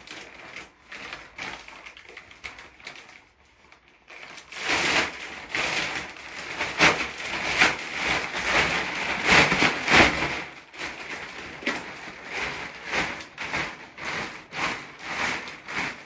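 Toilet being pried and rocked loose from a bathroom floor, its base stuck down with glue: irregular scraping, cracking and knocking. The noises are sparse and faint at first, then come thick and louder from about four seconds in.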